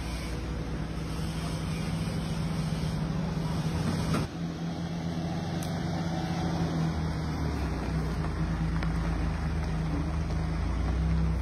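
Suzuki Every minivan's engine running with a steady low hum. The sound breaks off abruptly about four seconds in and then carries on.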